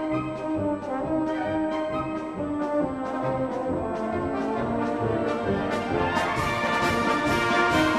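Background music: brass-led orchestral music with a steady beat, growing fuller near the end.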